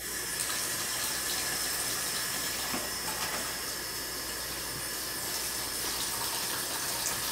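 Electric hand mixer running steadily, beating cake batter in a bowl; it starts abruptly.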